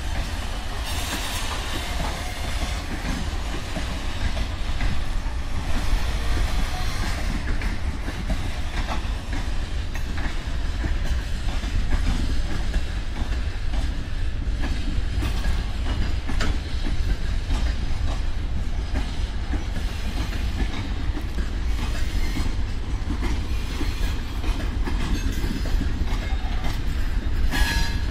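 Freight train of open gondola wagons rolling past. The wheels clatter over rail joints in a continuous rumble, with scattered knocks and clanks and a louder clank near the end.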